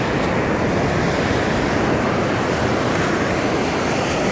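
Ocean surf breaking and washing up on the beach, a steady rushing noise, with wind buffeting the microphone.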